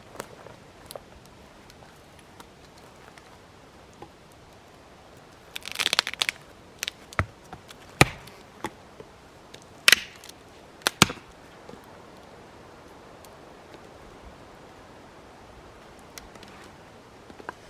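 Dry dead wood being broken up for firewood: a brief crackling snap about six seconds in, then a string of sharp cracks over the next five seconds.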